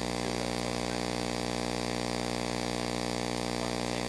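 Steady electrical mains hum through the sound system: a buzz of many evenly spaced tones that holds unchanged, with faint distant voices under it.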